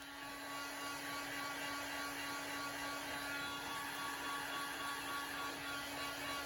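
Small electric blower motor running steadily: an even whir with a low steady hum, which settles in during the first second.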